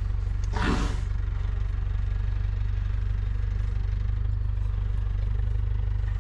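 Steady low hum of an idling safari vehicle's engine, with one short loud whoosh of air about half a second in.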